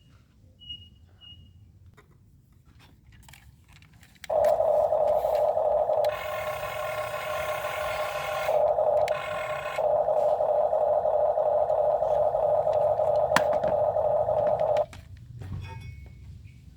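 Excavator at work: a loud, steady, high-pitched whine starts suddenly about four seconds in and cuts off sharply near the end. A harsh hiss or scrape lies over it for a few seconds in the middle.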